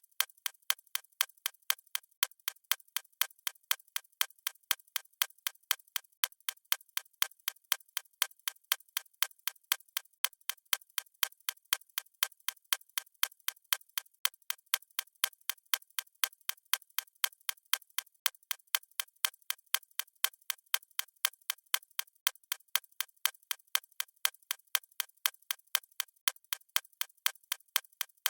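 Steady, evenly spaced ticking, about three ticks a second, like a clock.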